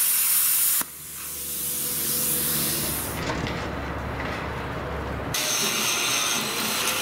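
Loud, steady hiss of a metal-cutting torch that stops abruptly under a second in. A quieter steady noise follows.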